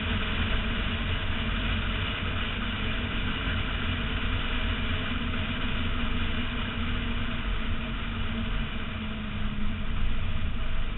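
BMW E46 M3's 3.2-litre straight-six engine running steadily at speed, heard from outside the car, mixed with a constant rush of wind and hiss from tyres on wet tarmac.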